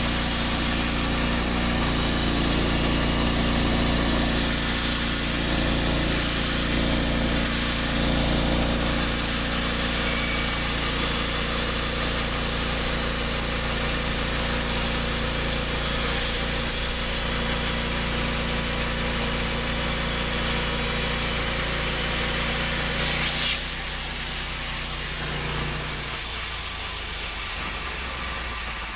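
Norwood HD38 portable band sawmill running steadily under power, its engine driving the band blade through a log. About three-quarters of the way through, the engine note changes and a low tone drops out.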